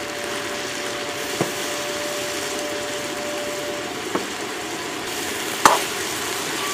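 Diced potatoes and minced pork sizzling in a wok while a metal spatula stirs them, with a couple of light clicks of the spatula on the pan and one sharper clack near the end.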